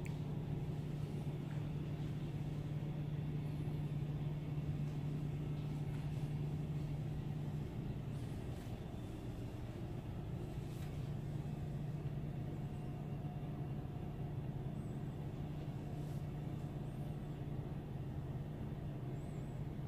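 A steady low mechanical hum, with a few faint ticks over it; the hum eases slightly about eight seconds in.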